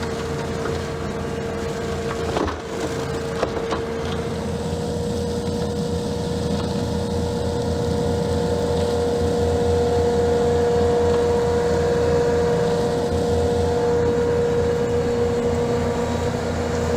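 Self-propelled brush cutter running steadily under power, with a constant whine over a low engine rumble, and a few sharp cracks from about two to three and a half seconds in as it cuts through woody growth.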